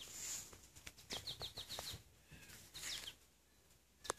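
A small songbird singing: two short runs of quick, high, falling chirps, several a second, with a faint click just before the end.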